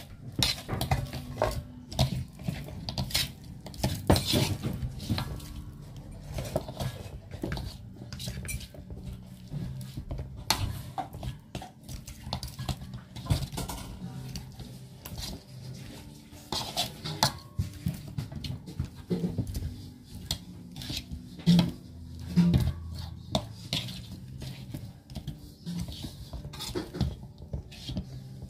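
Irregular clinks and knocks of a plate and kitchen utensils as pieces of grilled chicken are set out on the plate, over a low steady hum.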